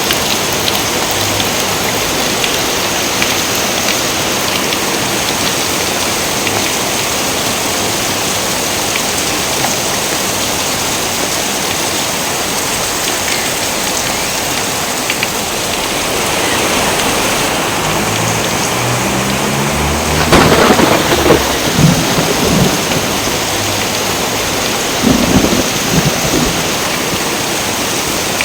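Steady rain hissing throughout, with thunder joining about two-thirds in: a low rumble builds, then a loud crack rolls on for a couple of seconds, and a second, shorter burst follows a few seconds later.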